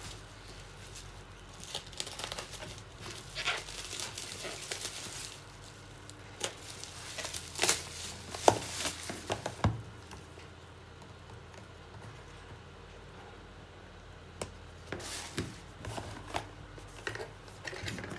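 Bubble wrap and plastic packaging crinkling and tearing as a parcel is unwrapped by hand, in bursts, with a couple of sharp clicks about two-thirds of the way through the first half. It goes quieter for a few seconds around the middle, then the rustling picks up again near the end.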